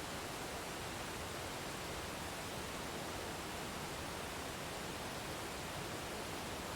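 Waterfall: a steady, even rush of falling water with no individual splashes or changes.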